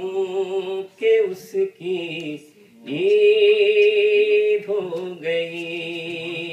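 A man singing Urdu verse in tarannum, the melodic style of mushaira recitation, into a microphone with no instruments. Short phrases give way to two long held, wavering notes in the second half.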